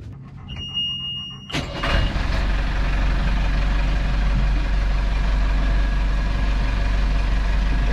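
A steady high-pitched buzzer tone for about a second, then the sailboat's inboard engine cranks and starts about a second and a half in and settles into a steady low idle. It is running again after its clogged raw-water intake strainer was cleared of seaweed.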